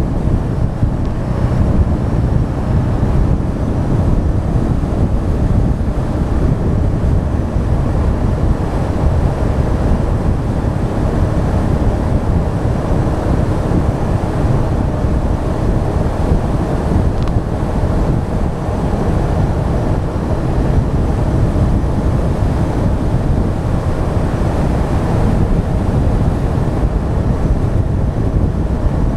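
Steady wind rush on the microphone of an action camera mounted on the front of a moving Honda Deauville 650 motorcycle, with the bike's V-twin engine running underneath at an even pace.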